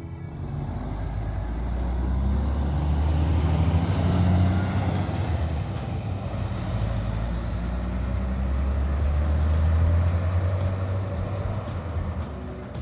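Large motor vehicle engine running with a low drone. It builds to a peak about four seconds in, eases off, then builds again near ten seconds, as when pulling away and gathering speed.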